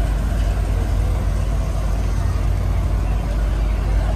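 Diesel locomotive idling at a standstill: a steady, loud, low rumble.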